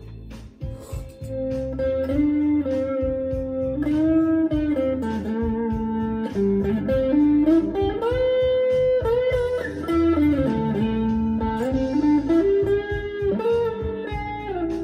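Electric guitar playing a blues lead line of sustained notes with string bends that slide up and down in pitch, over a backing track with a steady rhythmic low end.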